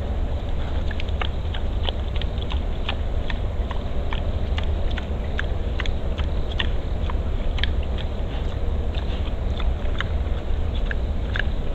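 Wild boar chewing and crunching bait: quick, irregular crunches over a steady low rumble.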